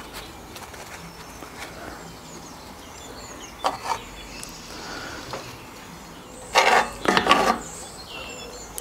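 Metal tongs clattering and scraping in a cast iron skillet as bratwursts and onions are picked out: one short clatter a little after a third of the way in, then a cluster of louder bursts about two-thirds of the way in.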